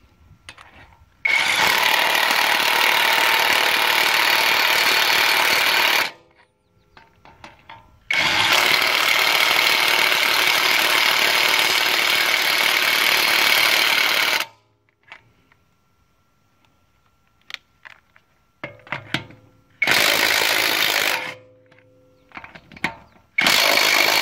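AutoJare 20 V brushless cordless 1/2-inch impact wrench hammering on wheel lug nuts: two long runs of about five and six seconds, then a brief blip and two shorter runs, each starting and stopping abruptly. Small clicks of socket and nuts come between the runs.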